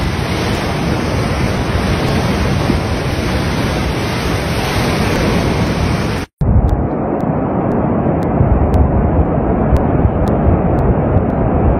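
Large, churning waves crashing against a seawall: a steady, loud rush of surf with wind. After a sudden cut about six seconds in, the sound turns duller and more muffled, a low rumble of wind on the microphone and distant surging water.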